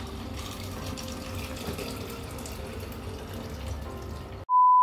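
Steady rushing noise, like water running from a tap, for about four and a half seconds. Then it cuts off abruptly and a loud, steady single-pitch beep starts, of the kind used as an edited-in bleep.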